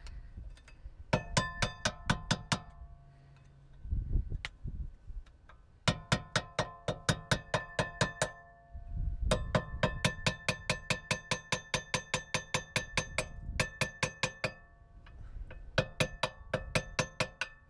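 A small hammer rapidly tapping a screwdriver against a Vauxhall Insignia rear brake pad to drive it out of the caliper. The strikes ring like metal, about five a second, in four runs with short pauses between. The pad is stuck and is being knocked in and out to loosen it.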